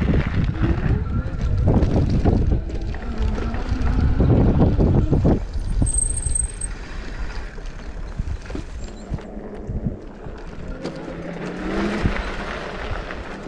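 Riding noise on a rough off-road trail: a steady low rumble with frequent knocks and rattles, busiest in the first half and smoother later on.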